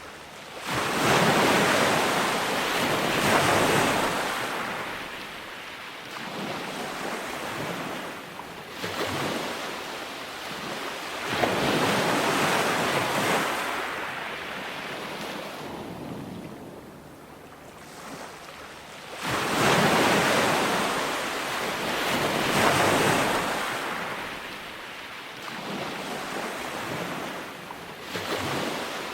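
Ocean surf: waves break with a sudden rush of noise, then wash up and fade over several seconds. Large breakers come roughly every eight to ten seconds, with smaller ones between.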